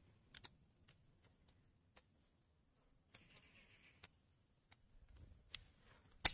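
Circlip pliers fitting a piston-pin lock ring into an S195 engine's aluminium piston: scattered small, sharp metallic clicks as the ring and pliers jaws catch against the piston, the sharpest click near the end.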